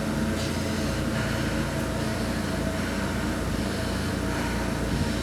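A steady low droning hum with a hiss over it, unchanging throughout.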